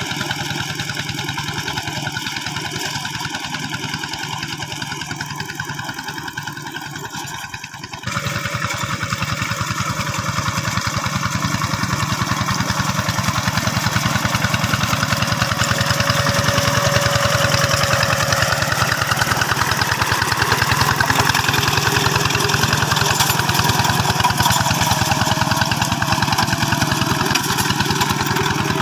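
Diesel engine of a two-wheel hand tractor running steadily with an even pulsing beat; about 8 seconds in, the sound abruptly changes and becomes louder and busier.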